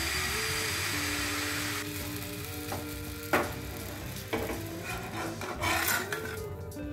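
Thin batter sizzling as it is poured onto a hot, ungreased non-stick pan; the hiss fades out after about two seconds. A sharp knock follows about three seconds in, and near the end a spatula scrapes under the edge of the pancake against the pan.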